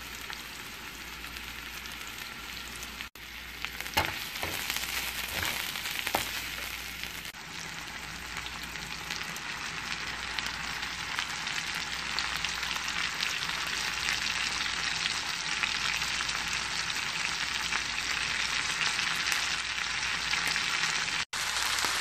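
Vegetables sizzling in hot oil in a frying pan as they are stir-fried: a steady frying hiss that grows louder over the stretch, with a few sharp clacks about four and six seconds in.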